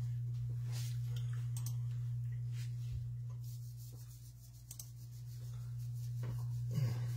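Steady low electrical hum, with faint scattered clicks and rubbing sounds from off-camera handling and a brief louder knock near the end.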